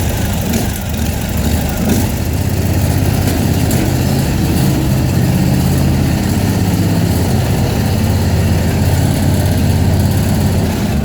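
Small-engine lawn tractor, a Craftsman with a Briggs & Stratton Vanguard engine, running steadily on a cold start after sitting for two months.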